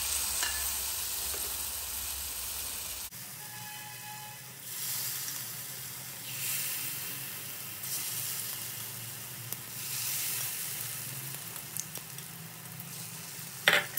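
Potato slices coated in besan batter being dropped one at a time into hot oil to deep-fry, the steady sizzle swelling each time a slice goes in. A few sharp clicks near the end.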